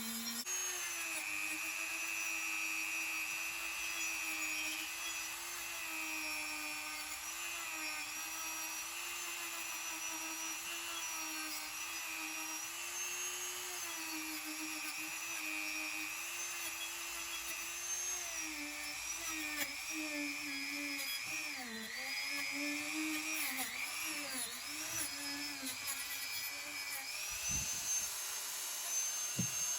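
Small high-speed electric rotary tool running steadily, its whine dipping and wavering in pitch several times in the second half as it is pressed against the work, with a couple of knocks near the end.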